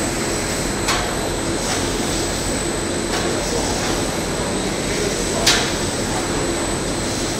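Continuous snack fryer running: a steady machinery noise with a thin high whine, while fried puffed snacks pour off the discharge belt into a stainless steel bin. Two sharp knocks, the louder one about five and a half seconds in.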